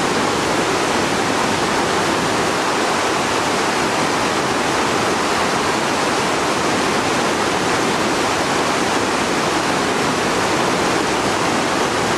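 Fast, rocky mountain river rushing through whitewater rapids: a loud, steady rush of water.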